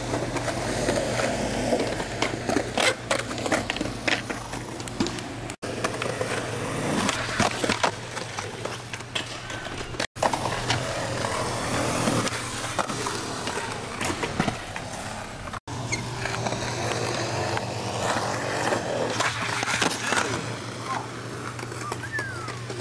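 Skateboard wheels rolling on smooth concrete, with sharp clacks of tails popping and boards landing, in several short takes that cut off abruptly. Partway through comes the scrape of a board sliding along a concrete ledge.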